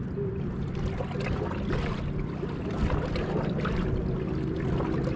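A small boat's motor running steadily at low speed, with water splashing and lapping against the hull.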